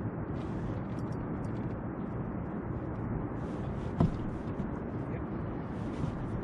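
Steady low rumbling noise outdoors, with faint ticks in the first couple of seconds and a single sharp knock about four seconds in.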